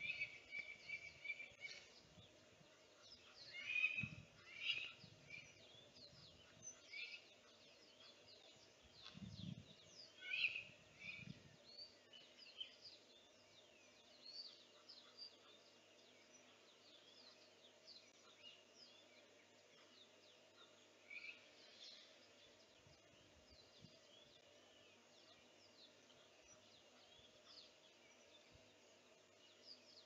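A flock of small wild birds calling in short chirps and twitters, busiest in the first dozen seconds and then thinning to scattered calls. A couple of low rumbles come about four and ten seconds in.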